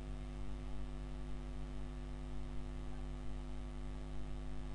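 Steady electrical mains hum with faint hiss in the recording, unchanging throughout.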